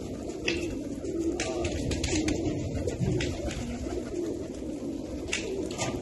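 A flock of racing pigeons cooing, many birds at once in a steady low chorus, with a few short sharp flutters or clicks over it.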